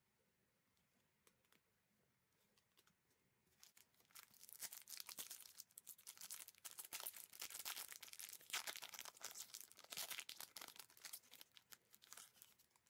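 Plastic trading card pack wrapper being torn open and crinkled by gloved hands, a dense crackling that starts about four seconds in and runs until just before the end, after a few faint clicks of cards being handled.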